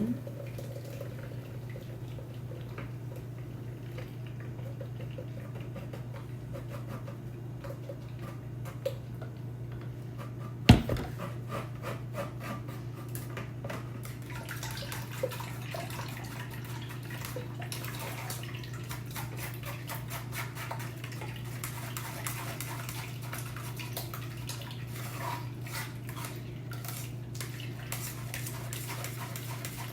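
A spoon scraping and tapping in a strainer as blended watermelon pulp is pushed through, with one sharp knock about 11 seconds in, over a steady low hum.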